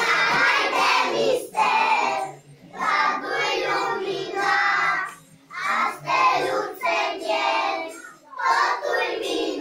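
A group of young children singing together, in short phrases with brief breaks between them.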